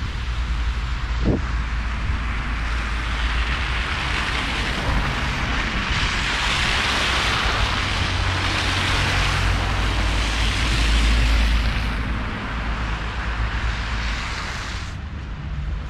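Tram in motion: a steady low rumble with a rushing hiss that builds over several seconds, holds, and then drops off fairly suddenly near the end.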